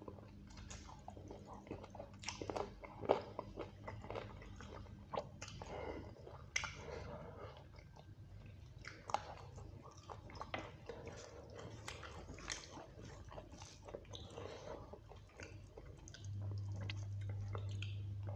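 A man chewing and smacking over mouthfuls of rice and chicken kosha eaten by hand, close to the microphone: many short, irregular smacks and clicks. A steady low hum starts near the end.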